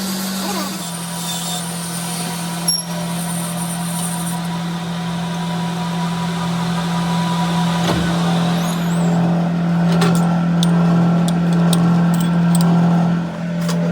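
An engine running steadily, with one sharp knock about three seconds in and a series of metallic clicks and clinks in the second half.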